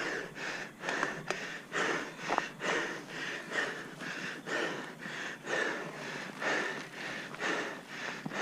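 A cyclist's heavy, hard breathing from the effort of pedalling up a steep climb, a rhythmic in-and-out of about one breath a second.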